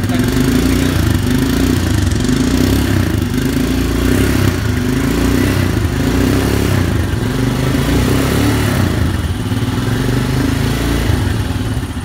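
Royal Enfield Himalayan's single-cylinder engine running after being jump-started from another bike's battery, revved on the throttle several times.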